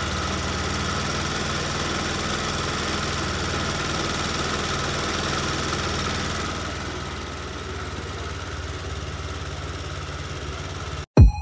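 Kymco Many 110 scooter engine running steadily, slightly above idle at first, then settling back to idle about seven seconds in. It cuts off abruptly with a click near the end.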